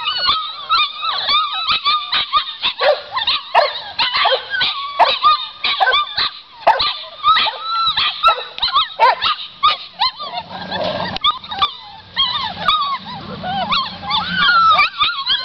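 A litter of pit bull–boxer mix puppies whining and yelping, many short high-pitched cries overlapping one another.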